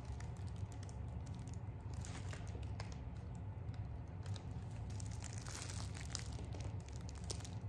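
Thin plastic bags and a paper bakery bag crinkling in short bursts as bread and groceries are handled, over a steady low hum.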